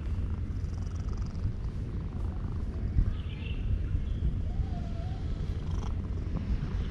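Domestic cat purring steadily while being petted, a continuous low rumble: a sign of contentment with the stroking.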